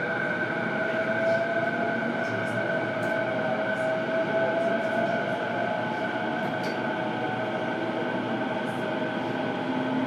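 Onboard running sound of a JR East E233-7000 series train heard from its motor car: steady rumble of the wheels on the rails under the whine of the Mitsubishi IGBT VVVF inverter. The inverter whine holds steady high tones, with a fainter tone slowly rising in pitch as the train picks up speed.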